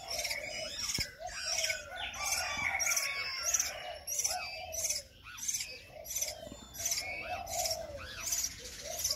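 Young laughingthrush chicks calling: a steady run of short, harsh, hissy chirps, about three every two seconds, with lower arched notes between them.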